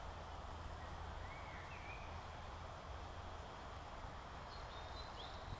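Steady low rumble and hiss of outdoor ambience, with faint chirping calls of small birds about a second in and again near the end.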